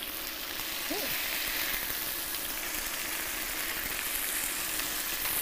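Chicken pieces frying in hot oil and pan juices in a cast-iron skillet: a steady sizzle.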